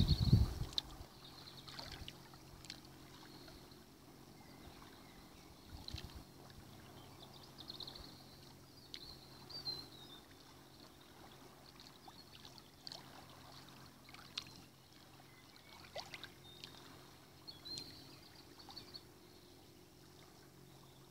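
Small lake waves lapping and splashing faintly against shoreline rocks, in soft irregular slaps a second or two apart, with a brief gust of wind on the microphone at the very start.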